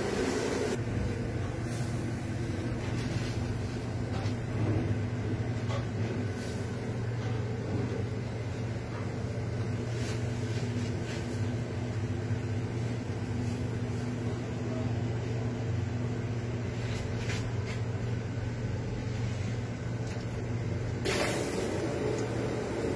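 Steady low mechanical hum with a few faint ticks. A louder rushing noise joins near the end.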